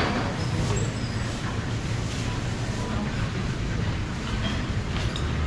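Steady low rumble of market-stall background noise, with a sharp click right at the start and a few faint ticks.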